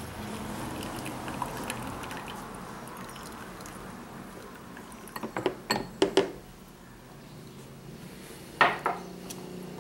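Light clinks and knocks of a drinking glass against the metal and plastic of a home espresso machine as the glass used for preheating is handled. There is a cluster of short clinks about five to six seconds in, then one sharper clink near the end.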